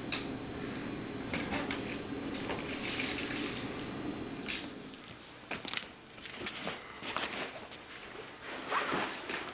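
A sharp click right at the start, then the rustles, scuffs and knocks of a person moving about, over a low hum that fades out about five seconds in.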